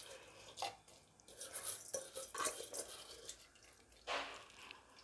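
Faint splashes, scrapes and clinks as washed rice is tipped from a metal dish into boiling water in a pressure cooker and stirred in, with a louder scrape about four seconds in.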